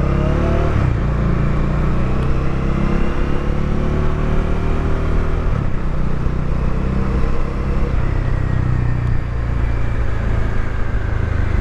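Bajaj Dominar 400's single-cylinder engine running while riding, with wind and road rumble, heard from a microphone inside the rider's helmet. The engine pitch rises briefly at the start, then holds steady.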